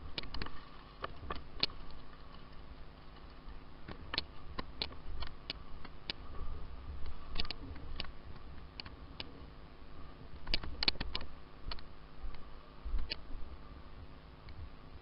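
Irregular sharp clicks and snaps, some single and some in quick clusters of two or three, over a faint steady hum.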